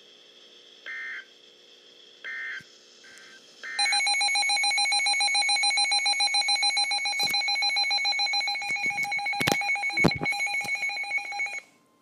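A few short electronic data chirps, then a Midland weather radio's alert alarm: a loud, fast-pulsing electronic beep for about eight seconds, with a few sharp clicks, cut off suddenly near the end. The alarm announces an incoming NOAA Weather Radio flood warning.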